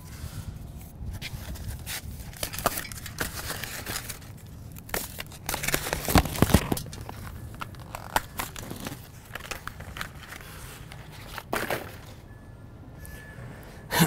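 Plastic packaging being pulled, torn and crumpled off a new bicycle: irregular crinkling and rustling with scattered sharp crackles, loudest about six seconds in.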